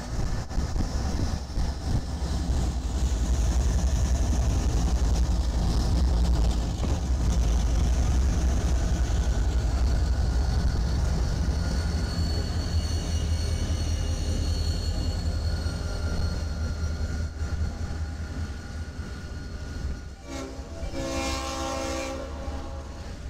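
CSX diesel-electric locomotives passing close by with a heavy, steady engine rumble and rail noise. Near the end a train horn blows, briefly breaking off once before sounding on.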